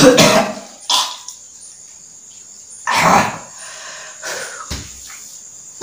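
A few short, loud voice-like outbursts: one at the start, a brief one about a second in, and the loudest, about half a second long, about three seconds in, with fainter sounds between.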